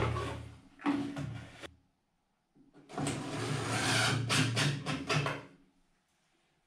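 Cordless drill driving screws into a round vent fan's mount on a ceiling: a short run of the motor, a brief stop, then a longer run of about two and a half seconds.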